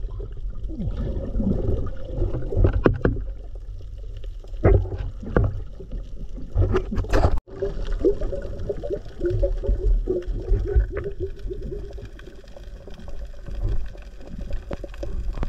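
Underwater sound picked up by a camera in its housing: a low, muffled rumble of water movement with scattered clicks and knocks. About halfway through the sound cuts out for an instant, and after that a faint wavering hum runs for a few seconds.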